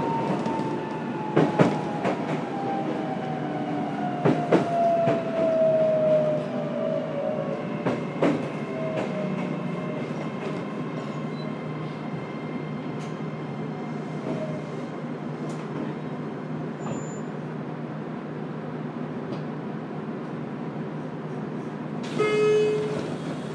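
Cabin running sound of a JR Kyushu 303 series electric train's motor car. The traction motor whine falls steadily in pitch over the first several seconds as the train slows, over a steady rumble, with a few sharp knocks from the wheels and track. A short horn-like blast sounds near the end.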